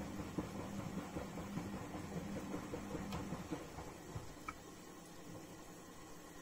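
Bompani BO27027 washer-dryer in its wash cycle: the drum motor hums as the drum turns, with wet laundry and sudsy water sloshing. The sound eases off over the last couple of seconds as the drum tumble slows.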